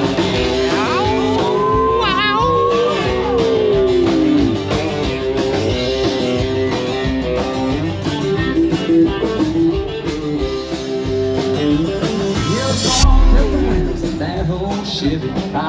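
Blues-rock music with guitar and singing, with one louder hit near the end.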